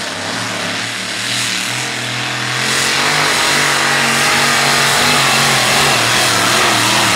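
Supercharged engine of a two-wheel-drive pulling vehicle running hard under load as it drags a weight-transfer sled. It gets louder about three seconds in.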